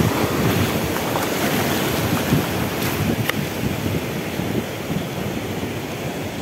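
Sea surf washing on the shore, with wind buffeting the microphone.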